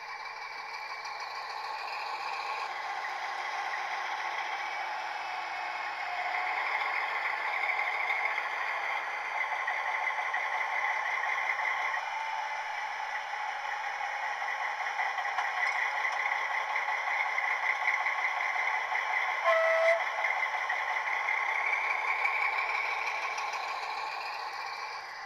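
Piko model of a PKP SU45 diesel locomotive running along the track, its sound decoder playing a diesel engine sound through the model's small speaker, with the model's motor and wheel noise mixed in. The sound swells a few seconds in and holds steady. A brief tone sounds about twenty seconds in, and the sound fades near the end.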